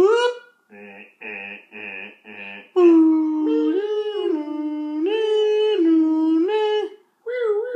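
A voice imitating an old car alarm's sequence: a rising whoop, four short beeps, then a held tone stepping back and forth between two pitches.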